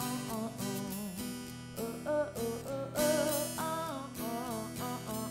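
Background music: a song led by strummed acoustic guitar, with a wavering melody line over it.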